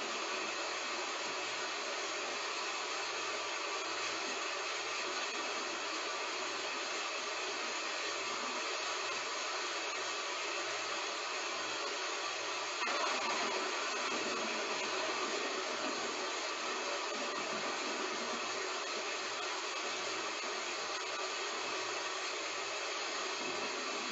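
Heavy rain falling steadily, an even hiss that gets a little louder about thirteen seconds in.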